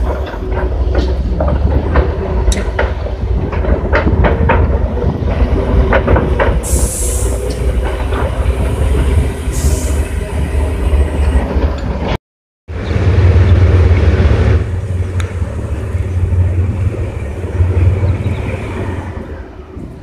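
Heavy engines of amphibious bridging vehicles running as they drive into the river and swim, a steady deep rumble with metallic clanks and knocks through the first several seconds and two short hissing bursts about seven and nine and a half seconds in. The sound cuts out for a moment about twelve seconds in, then the rumble resumes loud.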